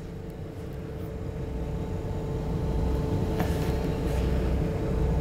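A boat's engine running steadily: a low rumble with a steady hum, gradually getting louder.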